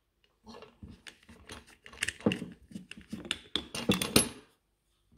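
A small screwdriver works the screws of an angle grinder's metal blade guard, and the guard is lifted off the gear head: a run of irregular metallic clicks, ticks and rattles, loudest about two and four seconds in.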